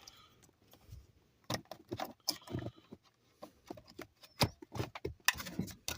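Scattered plastic clicks and rattles as the wiring-harness connector is handled and pushed onto a newly fitted ignition switch, with the loudest knocks near the end.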